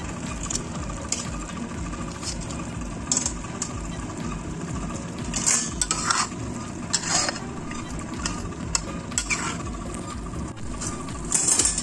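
Metal tongs and a spatula clinking and scraping against a wok as pieces of fried fish are turned in thick chilli sambal, with a few louder clinks now and then over a steady low background noise.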